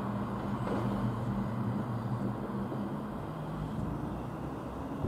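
Class 37 diesel locomotive's English Electric engine idling, a steady low hum that eases after about two and a half seconds, over outdoor background noise.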